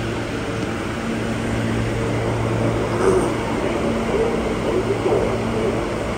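Alstom R160A subway car running through a tunnel, heard from inside the car: steady wheel and track noise with a low hum from the traction motors. There is a brief brighter screech about halfway through.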